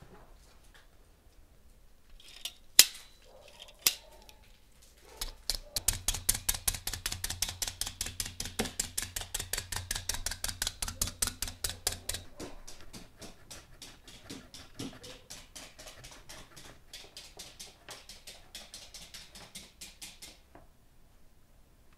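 Needle meat tenderizer stabbed rapidly into a raw beef slab on a wooden board: a fast, even run of sharp clicks, about five a second, louder at first and fainter in the second half. Two sharp knocks come a few seconds before the clicking starts.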